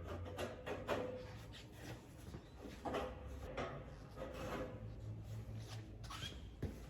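Steel workbench parts being handled and fitted together: scattered metal knocks and clicks with scraping and rubbing between them, the clearest knocks about a second in and around three seconds in, as the beams are clipped into the uprights.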